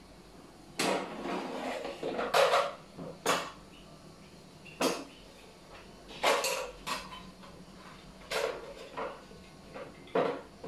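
Philips air fryer's basket drawer being slid out and its basket handled: a short rough scrape, then a run of sharp clacks and knocks of the basket against the unit and the table.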